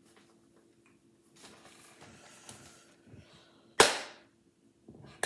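A single sharp hand clap about four seconds in, two palms striking together as she signs, dying away quickly, with soft rustling of hands and clothing before it and a second, smaller smack right at the end.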